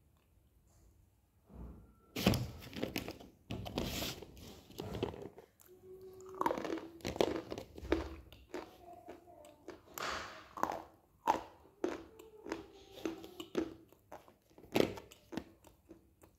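Close-up crunching bites and chewing of hard, dry edible clay pieces, starting about two seconds in as a quick run of sharp cracks and gritty chewing that goes on until near the end.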